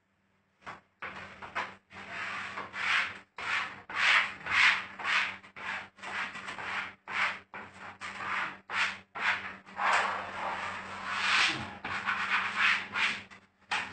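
Repeated rubbing strokes, roughly two a second, against freshly hung wallpaper as it is smoothed flat onto the wall.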